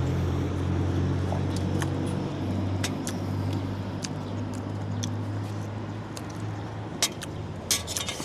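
A motor vehicle's engine running close by, a steady low hum that fades out after about six seconds, with a few sharp clinks of a spoon against a bowl.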